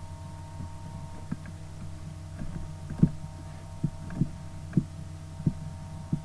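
Steady electrical hum from the recording setup, with about six soft, low thumps spaced unevenly through the second half.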